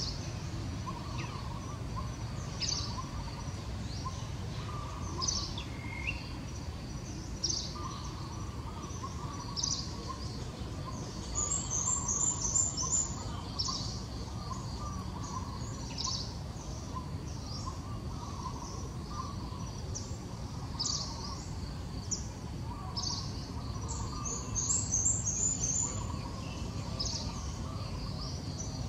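Birds chirping outdoors: short high chirps every couple of seconds, with a rapid trill twice, at about the middle and near the end, over a steady low background noise.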